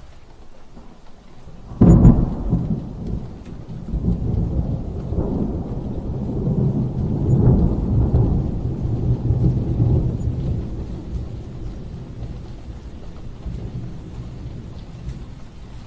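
Thunderstorm sound effect: a steady hiss of rain, then a sudden clap of thunder about two seconds in that rolls on as a low rumble, swelling again over the next several seconds before easing back to the rain.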